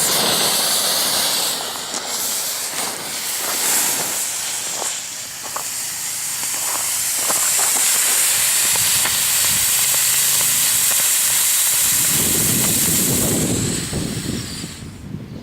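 Four smoke balls, their fuses twisted together into one combo, burning at once with a loud, steady hiss and a few faint crackles. The hiss dies down near the end.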